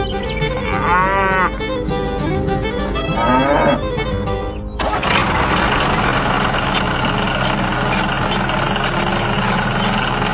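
Background music with two short sliding, wavering pitched sounds in the first four seconds. About five seconds in, a dense, steady noisy sound joins the music.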